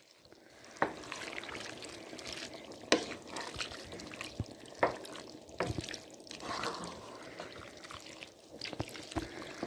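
A pot of stew being stirred: liquid sloshing, with a few sharp knocks of the stirring utensil against the pot.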